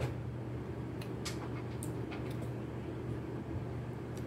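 A steady low hum with a few faint, sharp clicks scattered through it.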